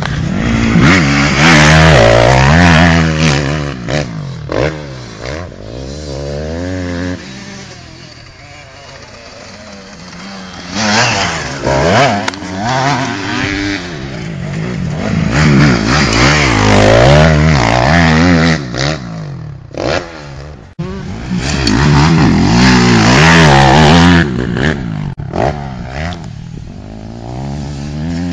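250cc four-stroke Honda motocross bike revving up and easing off again and again as it is ridden around a dirt track, its engine pitch rising and falling. It grows loud several times and fades for a few seconds in between as it moves nearer and farther away.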